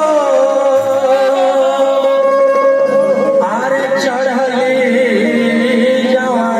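Purvi folk music: a long held melody line over a steady drone, with a second wavering melodic line joining about three and a half seconds in.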